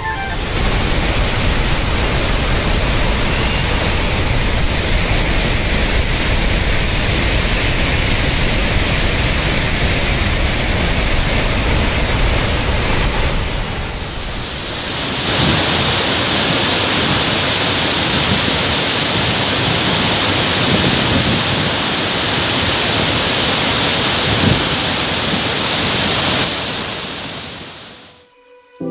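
Heavy monsoon flood water cascading down a waterfall and pouring over a stone weir, a steady rushing noise. About halfway through it shifts to a brighter, hissier rush, then fades out near the end.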